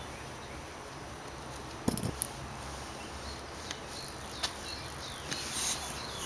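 Handling noise from a hand-held camera: a couple of sharp knocks with a dull thud about two seconds in, then a few fainter clicks and a short rustle near the end, over steady background hiss.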